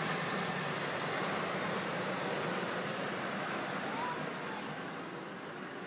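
Rebuilt Land Rover Discovery V8 engine idling steadily under a hissing rush, getting a little quieter near the end.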